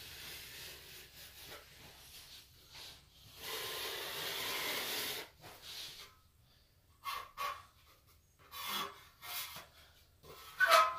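Steel plastering knife scraping wet plaster (joint compound) over plasterboard and off against a metal mud pan, in several strokes, the longest about four seconds in. The loudest, sharpest scrape comes just before the end.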